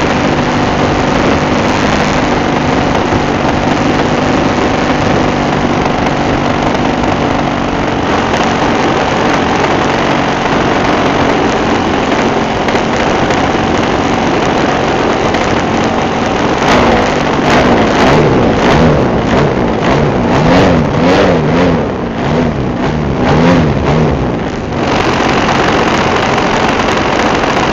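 Engine of a radio-controlled Cessna 182 model, heard from a camera on board in flight, running at a steady speed with wind rush. Past the middle, the engine pitch rises and falls over and over, with several sharp knocks.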